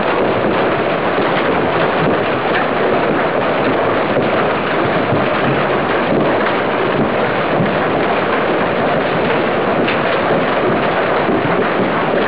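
Heavy golf-ball-sized hail coming down hard: a steady, unbroken roar made of countless small impacts.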